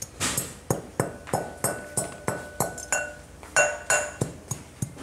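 Pestle pounding mắc mật seeds in a mortar: quick, regular strikes about three a second, some leaving a short ringing tone.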